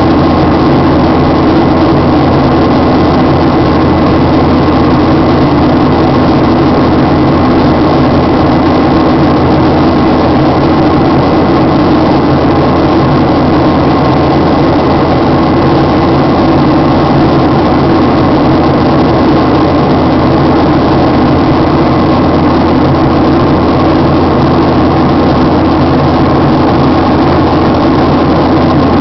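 Steady cabin noise of an airliner in flight: its turbofan engines and the rushing airflow heard from inside the passenger cabin, with a faint steady high tone running over the noise.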